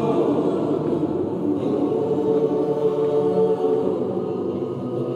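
Mixed choir of men's and women's voices singing in harmony, holding long sustained chords.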